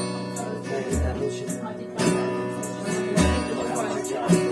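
Acoustic guitar strummed in a steady rhythm as a song intro, with a low thud about every two seconds.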